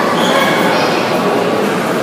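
Busy mall food court crowd: many overlapping voices blending into steady, indistinct chatter with general background bustle.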